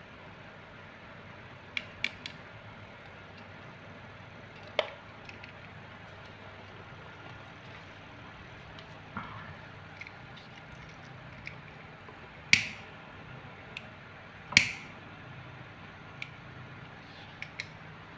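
Scattered small clicks and knocks of items being handled on a home altar, with two much louder sharp strikes two seconds apart in the second half, each trailing off in a short hiss: a flame being struck to light the altar candle.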